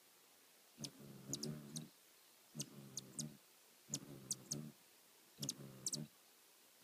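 Hummingbird wings humming in four short bursts of about a second each as it hovers at a feeder. Each burst carries a few sharp, high ticks.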